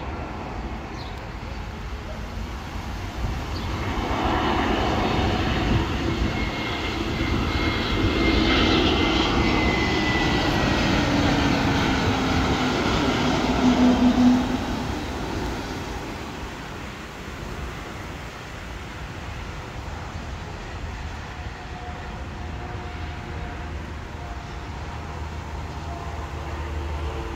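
Airbus A321neo's Pratt & Whitney PW1100G geared turbofans at approach power as the jet passes low overhead. The engine noise swells to a peak about fourteen seconds in, its whine dropping in pitch as it goes by, then dies away.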